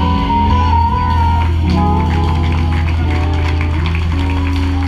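Live band playing: electric guitar and drum kit over sustained low bass notes, with a high held melody note in the first second.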